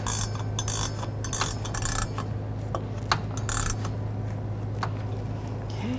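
A 14 mm ratcheting wrench clicking in short, irregular strokes as it snugs up the top nut of a rear shock absorber, over a steady low hum.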